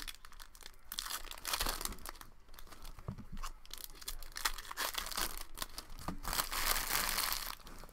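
Foil wrapper of a 2019-20 Upper Deck Series 1 hockey card pack being crinkled and torn open by hand: a run of crackles and snaps, with a longer, louder rip near the end.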